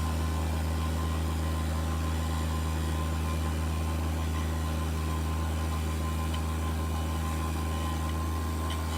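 Bench grinder running steadily at full speed: a constant electric-motor hum with a hiss over it.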